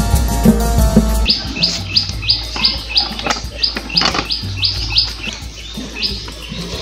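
Background music that cuts off about a second in, followed by a bird chirping over and over, short high calls about three a second, with a few sharp knocks among them.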